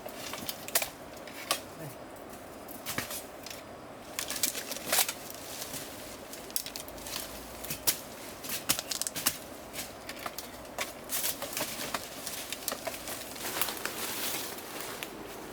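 Irregular sharp clicks, snaps and crackles with rustling, coming every fraction of a second to a second or so.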